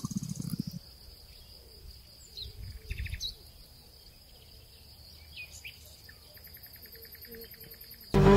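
Faint outdoor ambience: a steady high insect drone with a few short bird chirps and quick trills. Music cuts in abruptly near the end.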